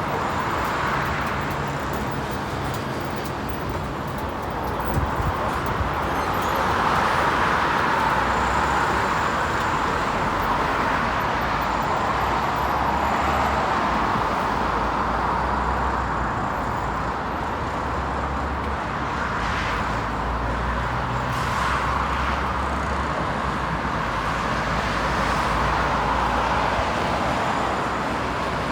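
City street traffic: a continuous wash of passing cars with low engine hum, swelling and fading as vehicles go by.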